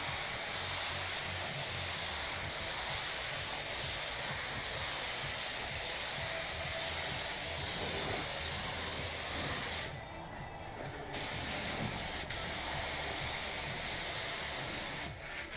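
Pneumatic paint spray gun hissing steadily as compressed air atomises paint. The hiss cuts off twice for about a second, about ten seconds in and again near the end, as the trigger is released.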